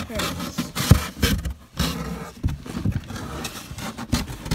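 Irregular knocks and scraping rustles as a person shifts around inside a box, handling the phone close to the microphone.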